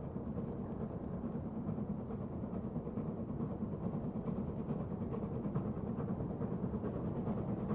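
BR Standard Class 4 4-6-0 steam locomotive working a train away, a steady low rumble of exhaust that grows a little louder.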